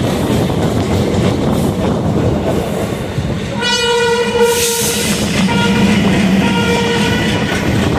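Two express trains passing each other on adjacent tracks, heard from the open door of a moving coach: a steady rumble of wheels and coaches. About halfway through, a locomotive horn sounds for about a second and a half, and a few shorter horn blasts follow near the end.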